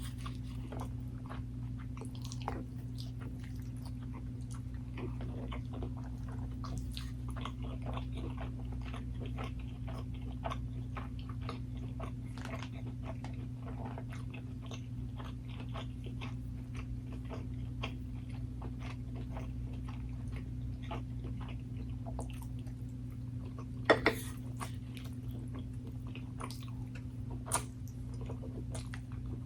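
Close-up eating sounds: steady chewing and biting, with small crunches and wet mouth clicks coming irregularly. A sharp tap, like a utensil on a dish, comes about 24 seconds in, over a steady low hum.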